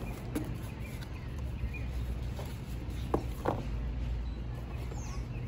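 Cardboard sheet handled and pressed against a metal gate: light rustles and knocks, with two sharper taps about three seconds in, over a steady low background hum.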